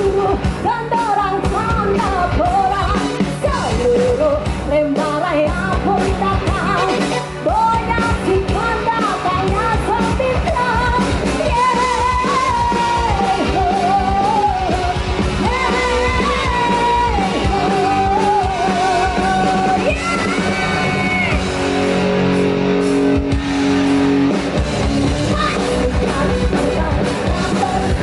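A band playing a song with a lead singer, the voice carrying a wavering melody over a steady accompaniment.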